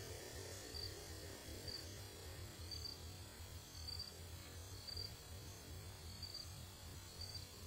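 Faint insect chirping, a short high chirp repeated about once a second, over a steady low hum.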